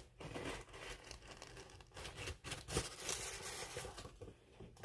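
Cardboard box being opened by hand: the lid scraping and rustling as it is lifted, with crinkling of the wrapping inside and a few sharper crackles in the middle.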